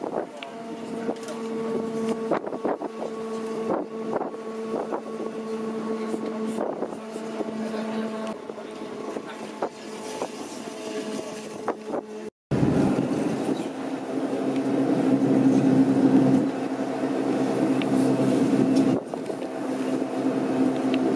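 Steam rotary snowplow Xrotd 9213 working through deep snow. At first it is heard from a train running close behind, with a steady hum and repeated clicks. After a sudden cut about twelve seconds in, it is heard from the lineside as a louder, denser mechanical noise as it passes.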